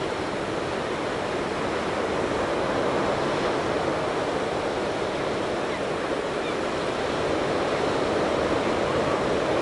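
Steady rush of ocean surf and wind, swelling and easing gently a couple of times.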